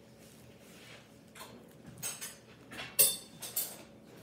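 Handling noise: a few short rubbing and scraping sounds from hands working close to the microphone, the loudest a sharp scrape about three seconds in.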